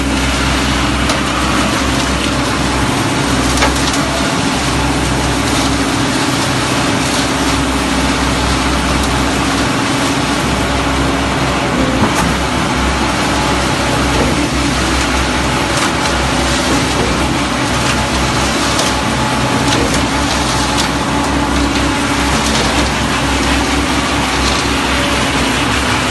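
Diesel engine of a concrete mixer pump running steadily, with a couple of short sharp knocks over it.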